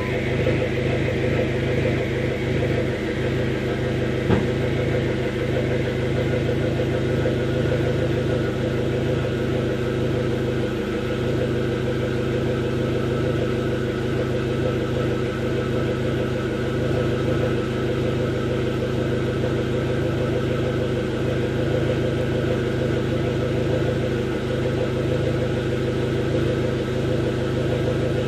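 2005 Dodge SRT-4's turbocharged 2.4-litre four-cylinder engine idling steadily, with a small click about four seconds in. This is the rough, lean idle that the owner traced to a failing upstream oxygen sensor.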